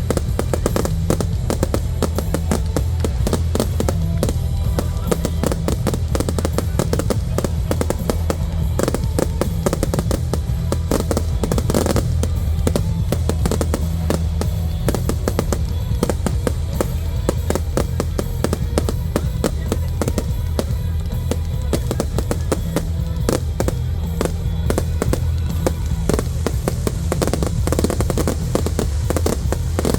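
Display fireworks going off in quick succession, a dense run of bangs and crackles over a music soundtrack with a steady beat.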